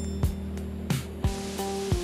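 Background music with steady bass and pitched notes changing about every two-thirds of a second.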